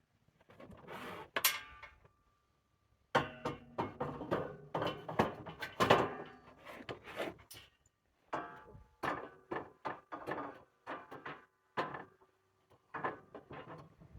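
Repeated knocks, bumps and clatter of heavy building materials being handled and shifted into place, some hits leaving a brief ringing tone.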